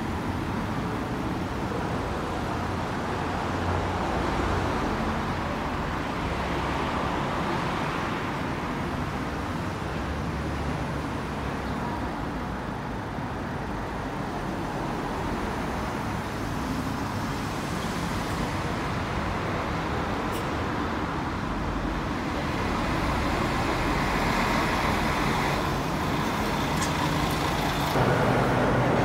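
Street traffic: cars and a city bus driving past. Near the end the sound turns louder as it changes to traffic under a concrete road underpass.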